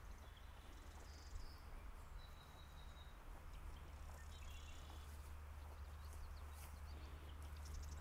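Steady, faint rushing of the Elvo torrent, with a few short, high bird calls and a faint footstep or two on the trail.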